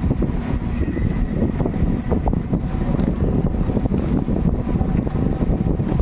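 Wind buffeting the microphone while travelling: a dense, steady low rumble with no clear engine note.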